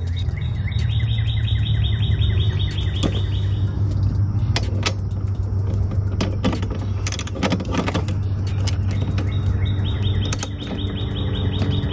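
Socket ratchet clicking in quick runs as it is swung back and forth, tightening the nuts of a strut tower brace, once near the start and again near the end. A few sharp knocks of metal tools fall in between, over a steady low hum.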